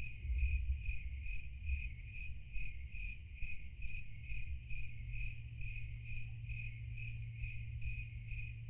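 Cricket chirping in an even rhythm of about two to three chirps a second, over a low steady hum: the stock crickets sound effect used in comedy edits for an awkward silence.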